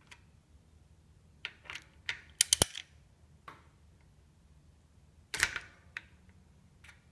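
Hex socket on a small ratchet working the rear axle-mount bolts of a bicycle: irregular sharp metallic clicks. The loudest is a quick cluster of clicks about two and a half seconds in, with another loud click about five and a half seconds in.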